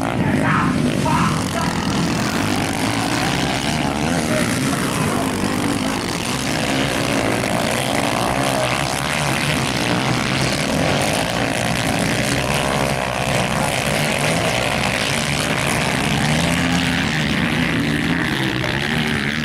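Several motocross dirt bikes racing around a dirt track, their engines revving up and down together in a continuous buzzing drone.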